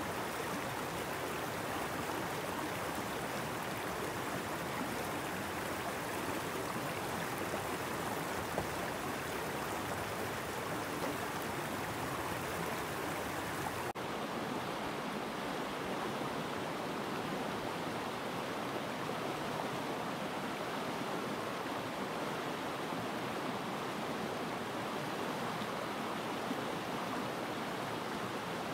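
A rocky woodland creek flowing over stones, a steady rushing of water. The high hiss softens slightly about halfway through.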